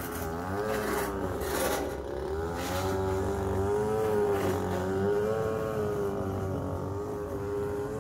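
Small petrol engines of lawn-care equipment, lawnmowers and weed whackers, running close outside; one engine's pitch wavers up and down as it is throttled.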